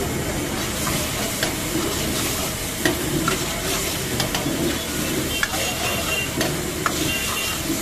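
Chilli chicken gravy sizzling in a black wok as it is reheated, stirred with a long steel ladle that scrapes and clinks against the pan again and again.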